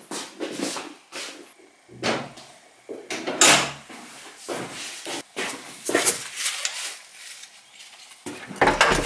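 Clicks and thumps of an apartment entry door's lock and handle as the door is unlocked and opened, with a few heavier thuds about two seconds in, around three and a half seconds, and near the end.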